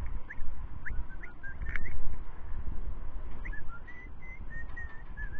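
Short high whistled chirps and pitch glides, a few scattered at first, then a run of repeated short notes in the second half, over a steady low rumbling noise.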